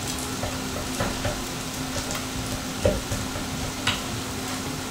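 A knife cutting along the bone through the charred crust of a grilled porterhouse steak on a wooden cutting board: a crackly scraping with a few clicks and taps from the knife and metal tongs, the loudest knock about three seconds in, over a steady low hum.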